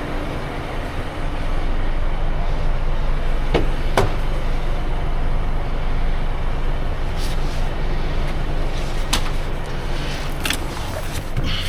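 Twin-charged Mercedes engine running steadily under road noise as the car drives, getting louder about a second and a half in. A few sharp clicks sound through it.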